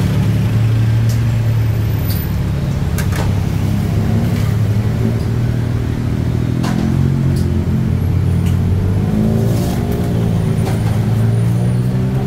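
Street traffic: a motor vehicle's engine running close by, its low hum rising and falling slightly in pitch, with scattered clinks of dishes and utensils.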